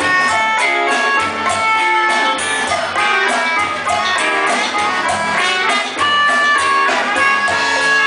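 A live rock band playing loudly, with guitar to the fore over a steady drum beat.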